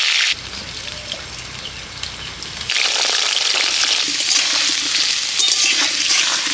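Cubes of young green jackfruit frying in hot mustard oil in a metal kadai, sizzling loudly. After the first moment the sizzle drops suddenly to a quieter stretch with a low hum, then comes back loud and crackling from about three seconds in.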